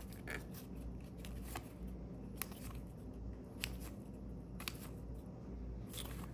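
A stack of basketball trading cards being flipped through by hand, one card at a time: faint, sharp flicks and slides of card on card, about once a second.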